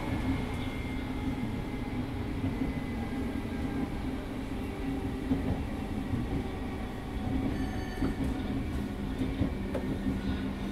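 Class 507 third-rail electric multiple unit heard from inside the passenger saloon near the cab, running along the line: a steady rumble of wheels and running gear under a low hum, which drops slightly in pitch near the end.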